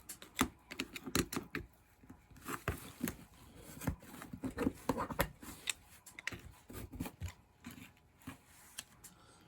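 Irregular light clicks, taps and short scrapes of small metal carburetor parts being handled and worked loose, around the choke.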